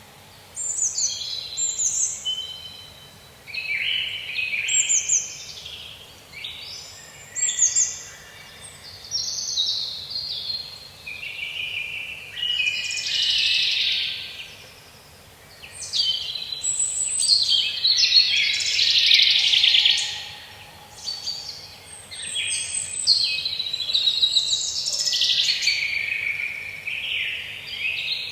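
Songbirds singing in a forest: many short whistled and trilled phrases follow one another with little pause and overlap at times, with a few loud rapid trills.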